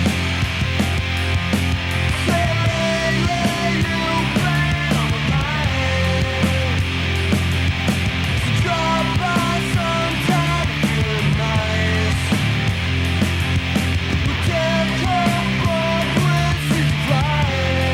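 Loud punk-style rock music: driving drums and a steady bass line under a lead melody that bends in pitch.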